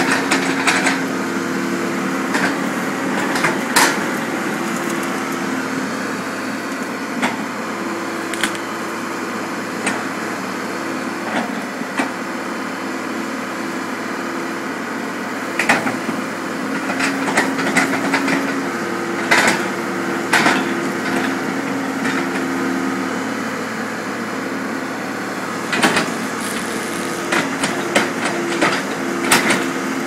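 Tracked mini excavator's engine running steadily as it digs out and dumps earthbags, the drone shifting pitch now and then as the hydraulics work. Sharp knocks and clanks come at irregular intervals from the bucket and falling bags, most thickly around the middle and near the end.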